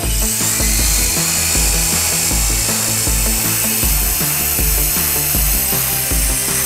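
High whine of a toy radio-controlled helicopter's small electric motors and spinning rotors, over background music with a steady beat.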